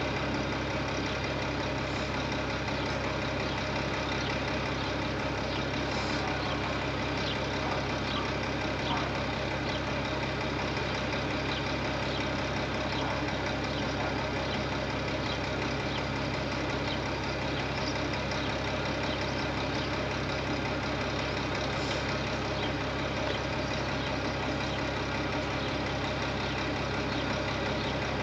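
A tipper truck's diesel engine idling in one steady, unbroken drone with an even hum.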